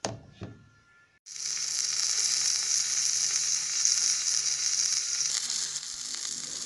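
Egg omelette frying in butter in a nonstick pan, sizzling steadily. The sizzle starts suddenly about a second in and eases a little near the end.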